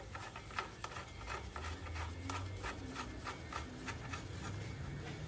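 Hand ratchet wrench turning a fastener under a truck: a steady run of short metallic clicks, about three to four a second, over a low steady hum.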